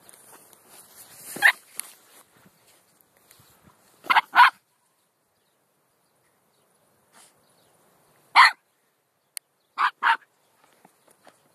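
Small poodle barking: short sharp barks, some in quick pairs, with pauses of a few seconds between.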